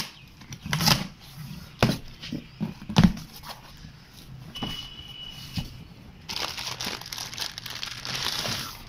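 Cardboard shipping box being opened: packing tape cut and the flaps pulled open, with several sharp rustles and knocks. Then the plastic bags inside crinkle steadily for the last few seconds as they are handled.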